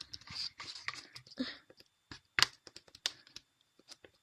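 Stirring a sticky slime mixture of melted foam clay and glue stick in a container: irregular wet squishes and sharp clicks as the mixture is worked.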